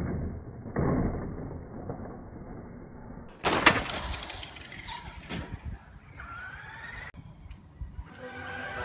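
Slowed-down, deep noise of a radio-controlled truck jumping, with a loud impact about three and a half seconds in and a few smaller knocks after it. Music comes in near the end.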